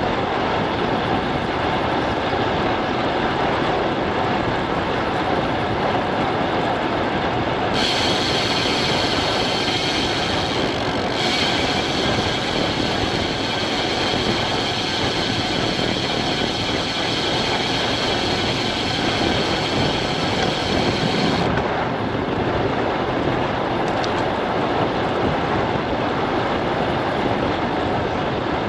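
Steady rush of wind over a bike-mounted GoPro's microphone, mixed with road-bike tyres rolling on asphalt at speed. A higher hiss joins about eight seconds in and drops away about twenty-one seconds in.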